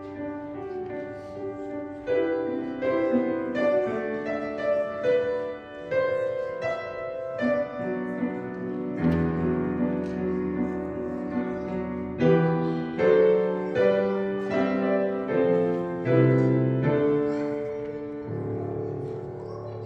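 Piano playing a slow instrumental piece, struck chords and melody notes that ring and fade, with a low bass line joining about nine seconds in.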